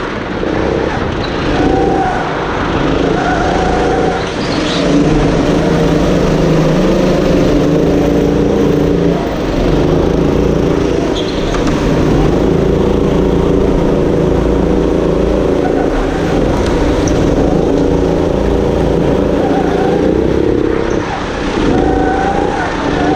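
Go-kart engine running hard under the driver's seat while racing, its note steady with brief dips a few times as the throttle comes off.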